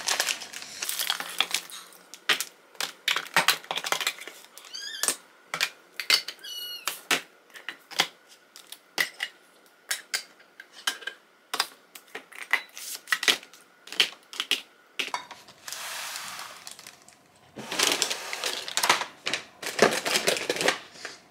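Metal food cans clinking and knocking as they are set down and stacked in a plastic basket. Plastic food packaging crinkles, with a long stretch of rustling in the last few seconds as plastic snack packets are packed into a plastic bin.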